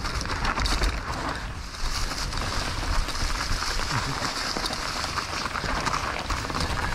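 Mountain bike tyres rolling and crunching through dry fallen leaves on a forest trail, a steady rustling hiss with small crackles, over a low rumble of wind and jolts on the microphone.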